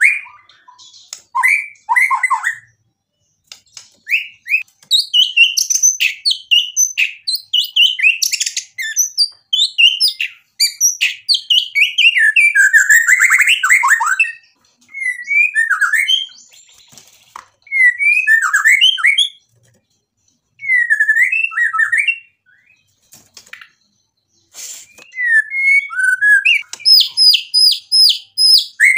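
Male white-rumped shama singing a long, varied song of loud whistled phrases and quick chattering notes, mixed with mimicked phrases, broken by short pauses. Near the end it gives a fast run of about six repeated notes.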